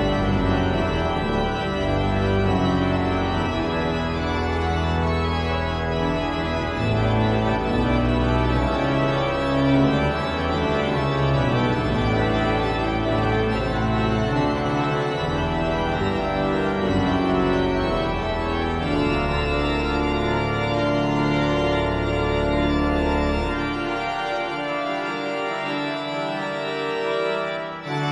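Rushworth and Dreaper pipe organ playing a toccata, steadily loud: busy, shifting chords over deep held pedal notes. The pedal bass drops out about four seconds before the end and comes back right at the end.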